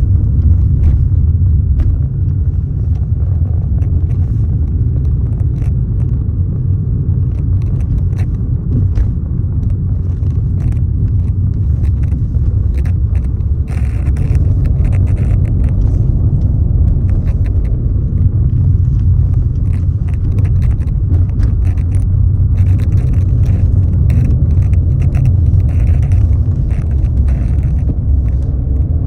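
Wind buffeting the microphone in a loud, steady low rumble. A higher hiss swells in about halfway through and again later on.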